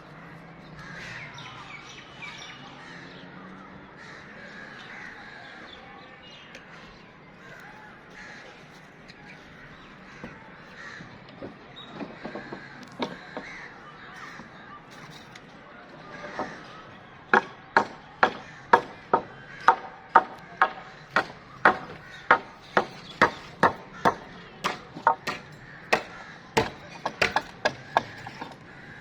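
Birds calling over a background hum. From about halfway in comes a long run of sharp, evenly spaced hard taps, about two a second, typical of a hammer or trowel striking brickwork on a building site.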